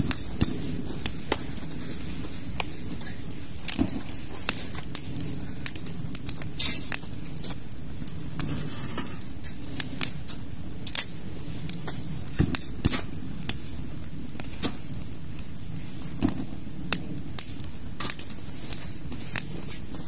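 Wood campfire crackling: irregular sharp pops about once a second over a steady low rush.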